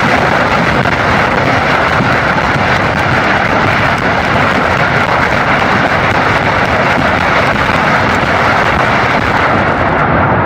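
BM-27 Uragan multiple rocket launcher firing a salvo of 220 mm rockets in quick succession: one continuous loud roar of rocket motors. The highest hiss drops away near the end.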